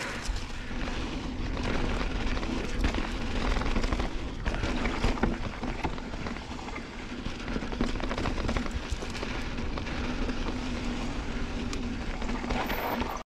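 Santa Cruz Bronson mountain bike riding fast over a rough dirt trail: tyres on dirt, with many small rattles and knocks from the bike over bumps, and wind rumble on the camera mic.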